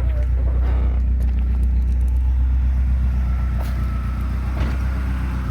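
Nissan SR20DET turbocharged 2.0-litre four-cylinder engine idling steadily, with no revving.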